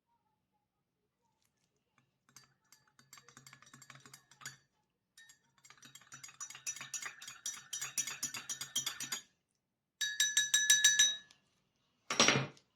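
A metal spoon stirring quickly in a glass, clinking against its sides in three runs of rapid, ringing clinks. Near the end comes one louder, sharper clatter.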